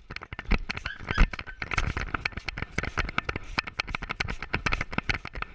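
Handling noise from a GoPro camera jostled against a Siberian husky's fur as the dog moves: a rapid, irregular stream of scrapes, rustles and knocks on the camera body.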